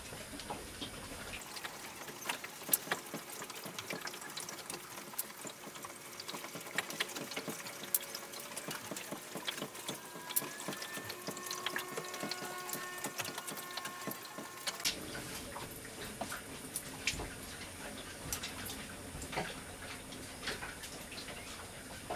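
Scattered small metallic clicks and scrapes of a flathead screwdriver backing out the cover-plate screws on a Sherwood raw-water pump.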